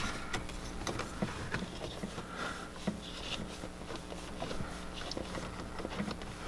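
Faint, irregular clicks and rubbing of hands handling cables and a plastic zip tie while fastening a wire to a wiring harness.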